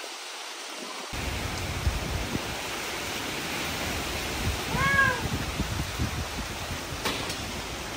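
Strong wind before a rainstorm, blowing across the microphone, heavier from about a second in. About five seconds in, a cat meows once, its pitch rising and then falling.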